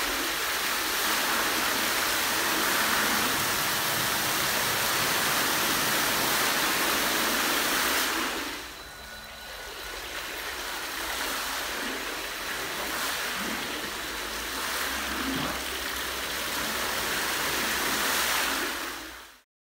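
A ring of fountain jets splashing water into a round wooden tank, a steady rushing splash. About eight seconds in most of the jets shut off and the splashing drops sharply, then it builds back up as the jets come on again, and it cuts off suddenly just before the end.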